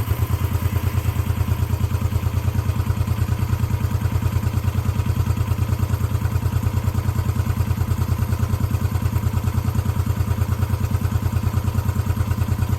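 1972 Honda CB350 air-cooled parallel-twin engine idling steadily and evenly while warm: it purrs like a kitten. The even idle is the sign of a fresh tune, with rebuilt carburetors, new points and coils, and adjusted valves and cam chain.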